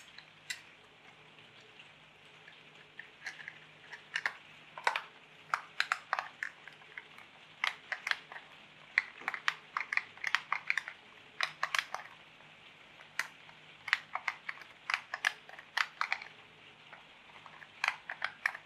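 Irregular clicks and taps of a toy-grade radio-control transmitter's plastic case being handled and its halves fitted together, some in quick clusters.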